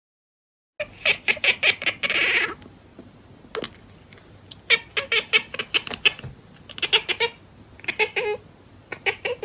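A cat chattering: runs of rapid, short clicking chirps, starting about a second in and coming in several bursts. It is the excited chatter a cat makes while staring at prey it cannot reach through a window.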